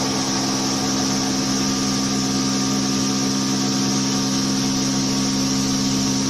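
CORMAK UWF 110 Servo universal milling machine running steadily, a hum of several low tones from its spindle drive with a steady hiss above it.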